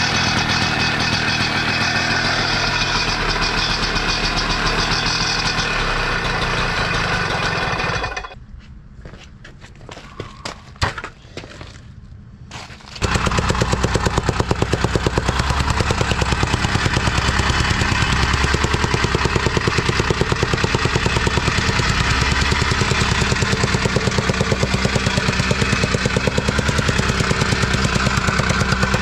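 Neuson BS60Y trench rammer's two-stroke engine running, with a fast, even pounding beat. About eight seconds in the sound drops away for some five seconds, leaving only faint clicks, then the rammer picks up again and runs on with a steady rapid beat.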